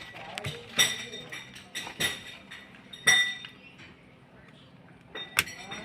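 Metal hand tools clinking: about five sharp metallic clinks, each with a short ring, spread unevenly.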